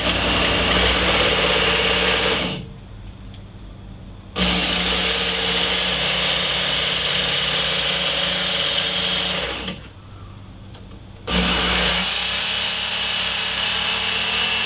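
Work Sharp electric belt sharpener with a coarse belt grinding the edge of a carbon-steel blade forged from a coil spring, throwing sparks. The motor runs in three spells, stopping briefly twice in between.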